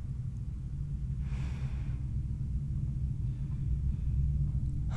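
A steady low rumble, with a soft breath or sigh, miked close, about a second and a half in.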